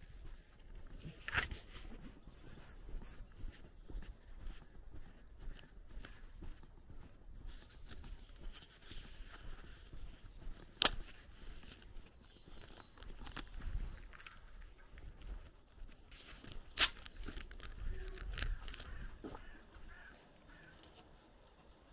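Footsteps scuffing and crunching along a dirt track, with faint bird chirps, and two sharp clicks, one about halfway through and one about three-quarters through.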